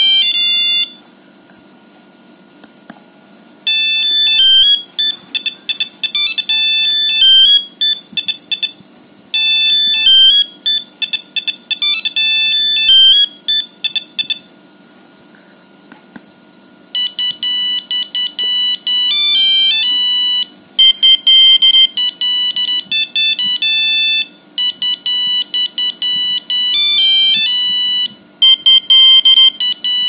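Nokia 5210 monophonic ringtones played through the phone's small built-in speaker: melodies of sharp electronic beeps. A short pause after the first second, one tune plays twice over, then after another pause a different tune starts a little past halfway and runs to the end.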